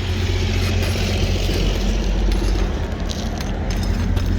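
A steady low engine hum, as from a motor vehicle running.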